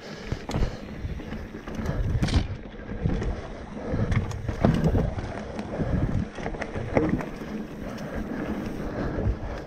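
Wind buffeting the microphone as a mountain bike rides a dirt trail, with irregular knocks and rattles from the bike as it bumps over the ground.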